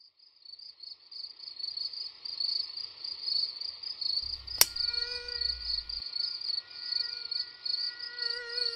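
Crickets chirping steadily, a high pulsing trill. A single sharp click about four and a half seconds in, and from then on a faint, thin buzzing whine of a mosquito in flight.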